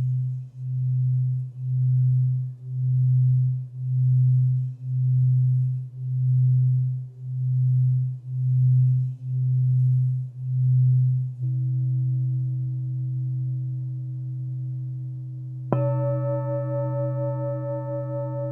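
Alchemy crystal singing bowls ringing: a low sustained hum that swells and fades about once a second, then holds steady. Near the end a higher bowl is struck and rings with several overtones over the low hum.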